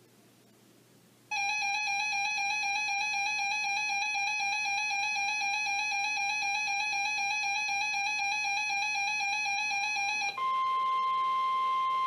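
Weather alert radio receivers sounding an electronic alert, a wavering buzzy beep tone, starting about a second in; about ten seconds in it gives way to the steady single-pitched NOAA Weather Radio 1050 Hz warning alarm tone, which signals that a new warning is about to be read.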